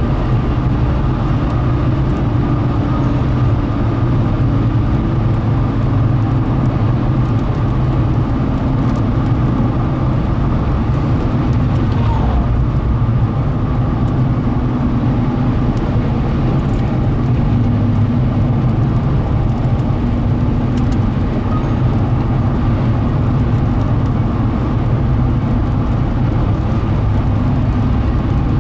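Steady low road and engine noise inside a car cabin while driving down the highway.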